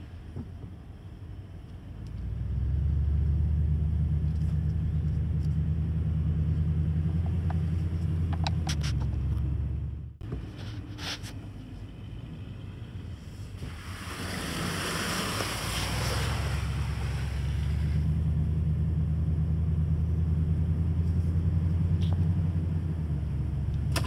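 Toyota Tundra pickup driving slowly along a sandy island track, a steady low rumble that swells and eases twice. A few seconds of hissing rush come midway.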